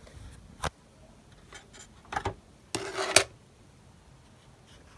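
Handling noises of small hard objects: a click about half a second in, a couple of light knocks about two seconds in, and a short rubbing scrape about three seconds in that ends in a sharp click.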